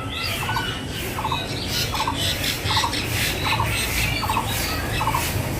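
Birds calling: a short call of three or four quick notes repeats a little more than once a second, with other chirping over it.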